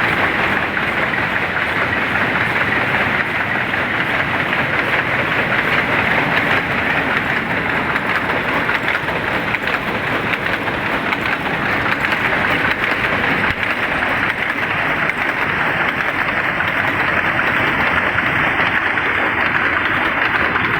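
Shuttle weaving loom running: a loud, steady, dense mechanical clatter.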